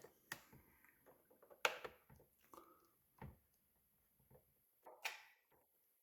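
Scattered clicks and knocks of plastic parts of a Bosch Tassimo coffee machine being handled and fitted back into place, with a deeper thump a little past three seconds in.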